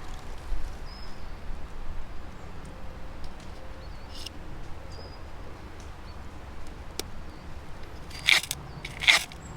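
Lighting a campfire: small handling clicks and rustles, then two short, harsh scraping strikes about a second apart near the end. Faint short bird chirps sound in the background.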